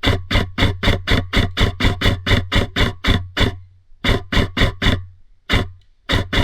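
Airsoft gun firing rapid shots, about four a second, in a long string, then a shorter burst of five, a single shot and two more near the end, over a low hum.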